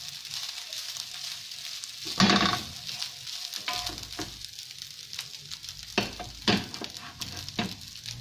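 Fried rice sizzling steadily in a nonstick frying pan as a wooden spoon stirs and turns it. A few louder scrapes and knocks of the spoon against the pan come through, the loudest about two seconds in and several more near the end.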